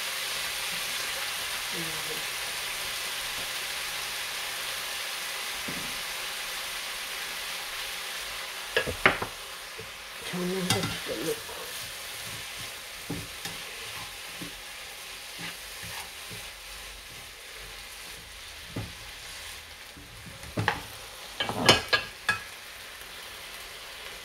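Octopus and vegetables sizzling in a frying pan as they are stir-fried, the sizzle easing off about halfway through. A few sharp knocks and scrapes of the spatula against the pan come in bunches.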